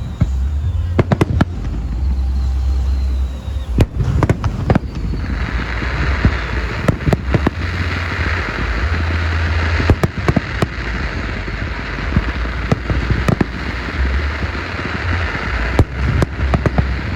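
Fireworks display: aerial shells bursting in many sharp bangs over a low booming rumble. About five seconds in, a steady hiss joins in.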